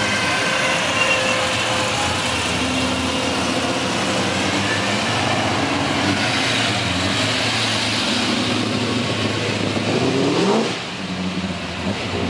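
Classic and muscle car engines running as the cars drive slowly past, the engine note rising and falling. One engine revs up sharply about ten seconds in.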